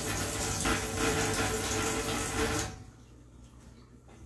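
Tap water running into a sink as a paintbrush is rinsed under it, an even rushing hiss; the tap is shut off about two and a half seconds in.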